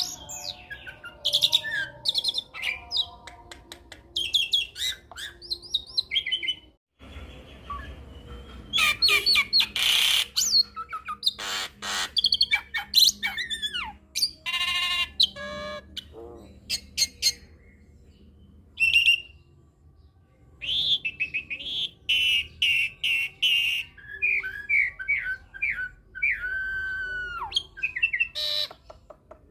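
A hybrid jalak, a Nias hill myna × Asian pied starling cross, singing a varied run of gliding whistles, chirps and harsh squawky calls full of mimicked phrases. The song breaks off for a moment about seven seconds in.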